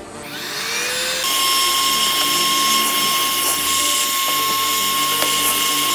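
Small high-speed rotary tool, of the kind used in phone repair, spinning up over the first second and then running steadily with a constant high whine.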